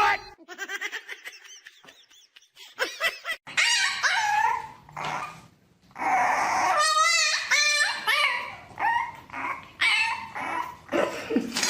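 A dog making a string of separate high-pitched vocal sounds, several of them wavering up and down in pitch, after a short quiet stretch at the start.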